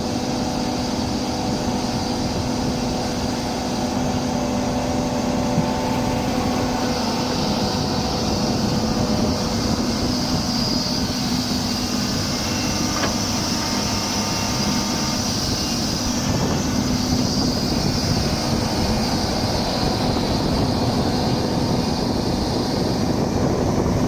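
Doosan 300LC-V excavator running steadily, its diesel engine giving a low hum with a high whine that swells and fades in long waves through the middle.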